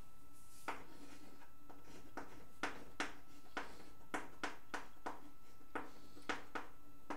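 Chalk on a blackboard: a dozen or more short, sharp taps and strokes at uneven spacing as a word is written by hand.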